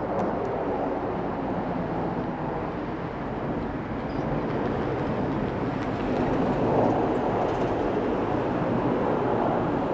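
Steady, distant rumble of a formation of six Kawasaki T-4 jet trainers flying an aerobatic manoeuvre overhead, growing a little louder about six seconds in.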